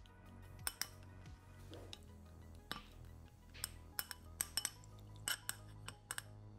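A spatula scraping and tapping a ceramic bowl as a thick chocolate mixture is emptied into a saucepan of milk: a scattered run of sharp clinks and ticks, over soft background music.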